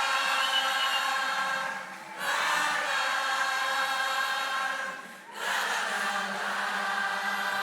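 Congregation and choir singing unaccompanied, many voices together, in three long held phrases of the 'lá, lá, lá' refrain of a worship song.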